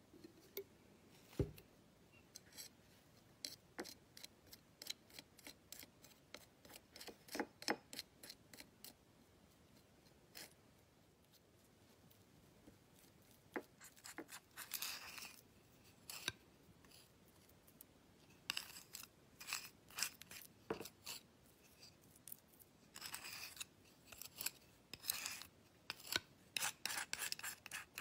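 A palette knife scraping and stirring wet pastel dust against a dish, mixing it into a paste: many short, irregular scrapes and taps in clusters.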